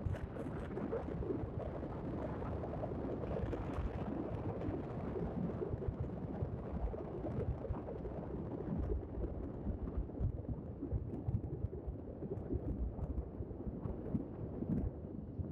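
Wind buffeting the microphone of a moving motorcycle, a steady low rumble of riding noise that never lets up.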